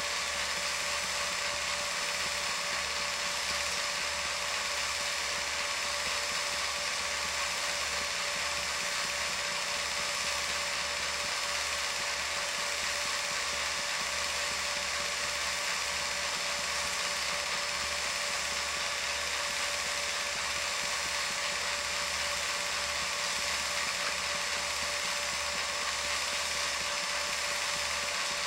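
Film projector running: a steady motor whir with the fast, even clatter of the film-advance mechanism and a constant high tone.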